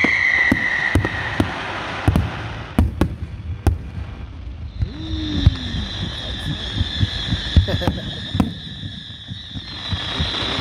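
Fireworks going off: repeated sharp bangs of bursting shells, with a whistling firework falling in pitch during the first second or so. About halfway through, a second steady high whistle starts and holds.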